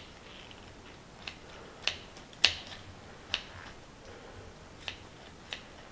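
Kitchen shears snipping around a chicken wing bone to free it from the meat: about six short, sharp clicks at irregular intervals, the loudest about two and a half seconds in.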